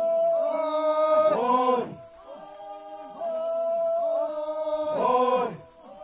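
Male voices chanting together in a slow, repeated phrase: each line is held on a long note and ends in a falling glide, with two such lines in a few seconds.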